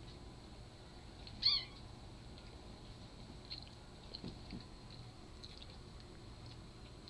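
Japanese Bobtail kitten giving one short, high-pitched mew about a second and a half in, amid faint scuffling of kittens wrestling.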